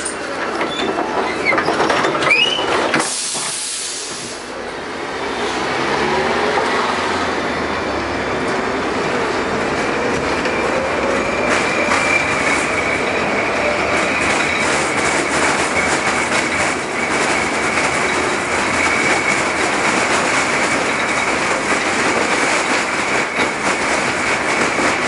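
LM-68M tram pulling away and picking up speed. Its motor whine rises steadily in pitch and the wheels clack over the rail joints, with a steady high wheel squeal. A short hiss comes about three seconds in.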